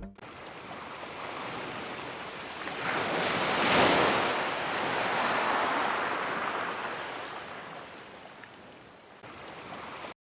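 Black Sea surf washing ashore: the wash swells to its loudest about four seconds in, then slowly fades and cuts off just before the end.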